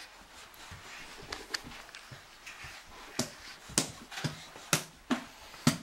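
A crawling baby's hands slapping on a wood-laminate floor: a few irregular sharp knocks about half a second apart from about three seconds in, after soft rustling as he crawls off the carpet.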